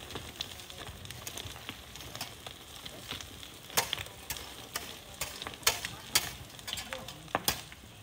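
Sand and stones being dug and shifted: a gritty scraping hiss with sharp knocks of stone on stone or tool on stone, louder and more frequent from about halfway in.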